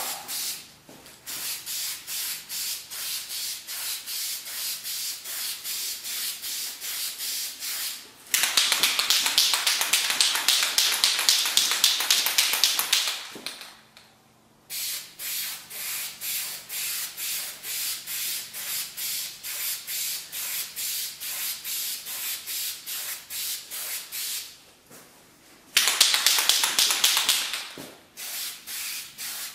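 An aerosol can of Krylon grey primer: the can is shaken, its mixing ball rattling in a steady rhythm, and this is broken by two steady hisses of spraying. The first hiss comes about eight seconds in and lasts about five seconds; the second, shorter one comes near the end.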